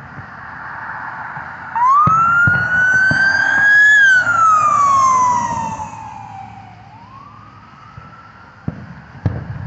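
Emergency-vehicle wail siren, rising and falling in pitch: loud from about two seconds in, falling off after four seconds and starting another rise near seven seconds. Several dull booms of fireworks bursting overhead, a few near the start of the siren and two more near the end.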